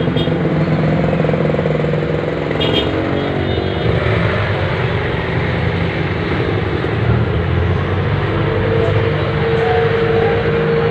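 A motor vehicle engine running close by amid street traffic, steady throughout, with a steady higher tone joining about eight seconds in.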